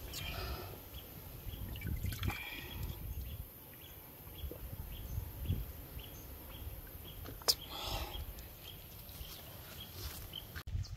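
Water being scooped and slopped by hand and cup from a hollow in a baobab trunk, in short splashy bursts near the start, about two seconds in and about eight seconds in, with a sharp click just before the last. A faint regular tick, about two a second, sounds behind it.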